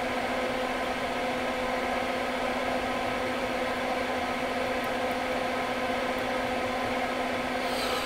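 Soldering fume extractor fan running steadily: an even whir with a constant low hum.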